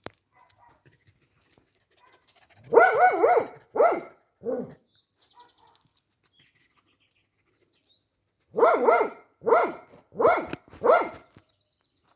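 A dog barking: three barks, then after a pause a run of four more.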